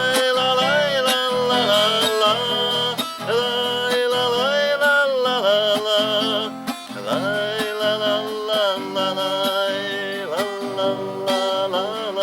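Music between verses of an acoustic song: guitar chords strummed under a held melody line that slides between notes.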